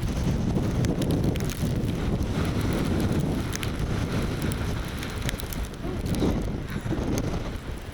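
Strong snowstorm wind buffeting the camera microphone. It is a low, rough rumble that swells and eases with the gusts.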